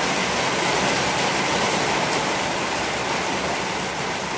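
Rain falling steadily, an even hiss of water.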